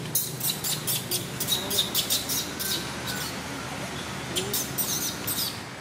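A rapid run of short, high chirps for about three seconds, then a pause, then a few more about four and a half seconds in.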